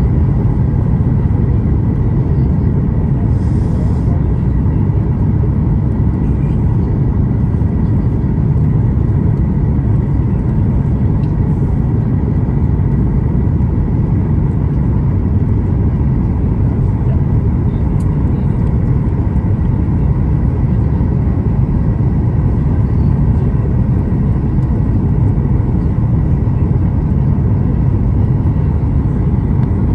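Steady low rumble of a Boeing 737-8 MAX's cabin on final approach: the CFM LEAP-1B engines and the airflow heard from a seat over the wing, with faint thin steady tones above the rumble.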